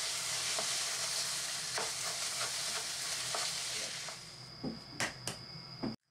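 Rice frying in a pan with a steady sizzle, stirred with a wooden spatula in several scraping strokes. About four seconds in the sizzle dies down, leaving a few light clicks.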